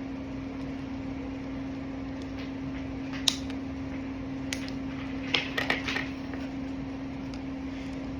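Plastic blind-ball toy package being handled: a sharp click about three seconds in, another a second later, then a quick cluster of clicks and rustles. A steady hum runs underneath.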